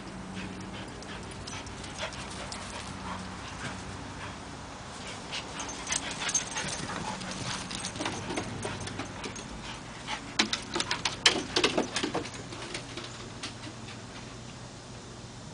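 A Soft-coated Wheaten Terrier whimpering softly, among a scatter of quick clicks and rustles that are busiest a little past the middle.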